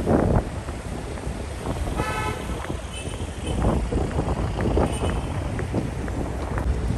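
City street traffic with wind buffeting the microphone, and a short vehicle horn toot about two seconds in.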